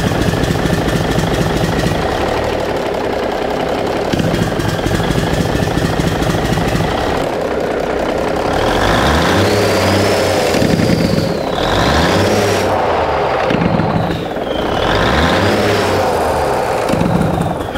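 Cummins 855 inline-six turbo diesel running with its Jacobs engine brake switched on by hand: a rapid, harsh crackle at idle. From about 8 seconds in the engine is revved and let fall three times with the Jake brake working, louder, with a turbo whistle rising and falling with the revs.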